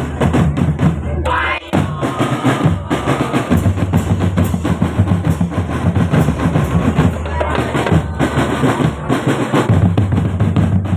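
Marching drum band playing, with bass drums and snare drums keeping up a dense, steady beat that drops out for a moment a little under two seconds in.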